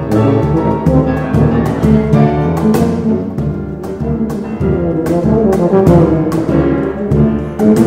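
Two tubas playing together, accompanied by piano and cajon, with frequent sharp cajon strikes over the low brass lines.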